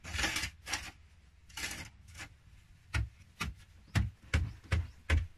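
A hand tool scraping across a packed-earth floor a few times, then striking it in a run of sharp knocks with a dull thud, about two to three a second from about three seconds in.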